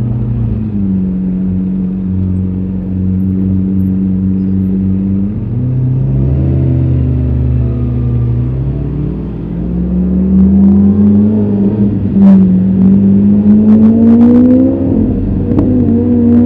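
A vehicle engine running in city traffic. It holds a steady pitch at first, then revs up with a rising pitch in the second half, and there are a few sharp clicks near the end.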